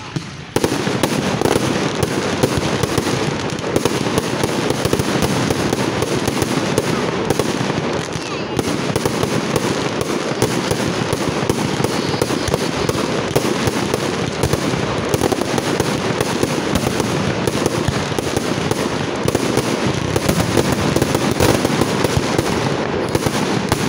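Fireworks going off at ground level, a dense, continuous crackling of rapid pops that starts abruptly about half a second in.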